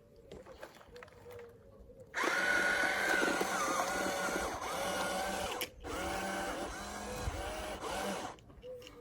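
Small electric motor whining, its pitch wavering with load, in two runs with a brief stop a little past the middle.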